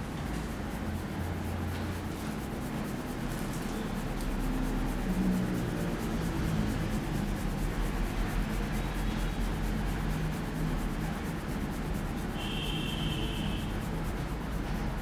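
Hands rubbing and kneading a scalp and hair in a head massage, a steady friction sound over a low background hum. A brief high-pitched tone sounds about twelve seconds in.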